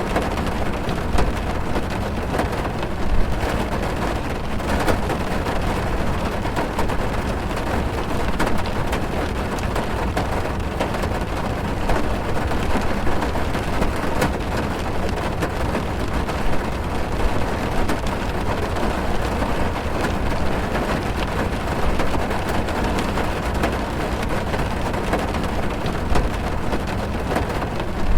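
Heavy rain drumming on a car's roof and windows, heard from inside the car: a steady, dense patter of drops over a deep low rumble.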